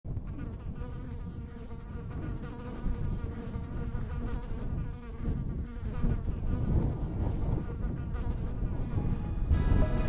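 Many bees buzzing together in a dense, wavering hum.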